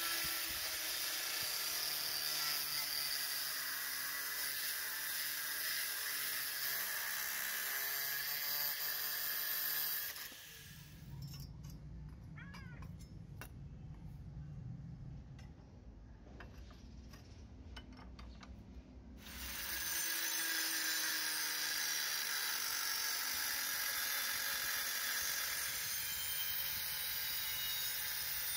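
Angle grinder with a thin cut-off disc cutting thin sheet metal, a steady loud whine and hiss. About ten seconds in it stops, giving way to a quieter stretch of scattered light clicks and scraping from a hand tool on the plate, and the grinder cuts again from about twenty seconds in.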